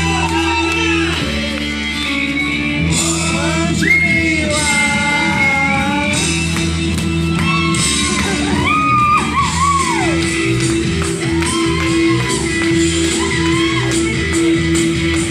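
Live band playing a song, a singer's voice gliding over steady bass and guitar, with some shouted vocals, in a large hall.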